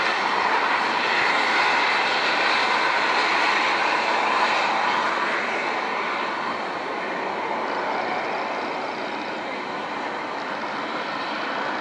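Ooty toy train coaches rolling along metre-gauge track on a curve: a steady rushing noise without any beat, growing a little fainter in the second half.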